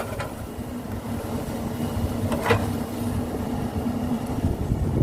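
Heavy diesel engine running steadily at a low, even speed, with one short louder noise about two and a half seconds in.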